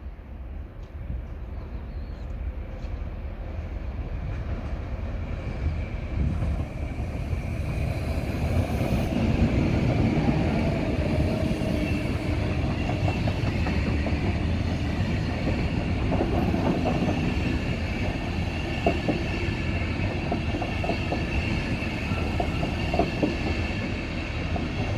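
An electric locomotive-hauled train of Intercity coaches rolling past at low speed, its rumble swelling over the first ten seconds and then holding steady. A steady high wheel squeal runs under it, and the wheels clack over rail joints and points in the second half.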